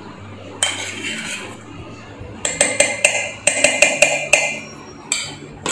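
Metal spoon scraping curd off the inside of a stainless steel bowl, then clinking repeatedly against the steel mixer-grinder jar and bowl, about ten quick ringing taps in two seconds, with a few more near the end.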